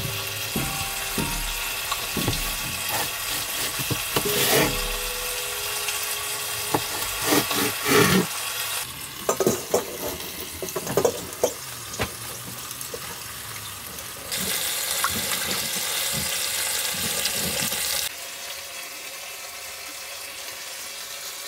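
A chef's knife knocks a few times through leeks onto a wooden cutting board. Then a galley tap runs into a stainless steel bowl for a few seconds and leek greens are swished in the water. A pan of skin-on chicken sizzles steadily underneath, its fat rendering.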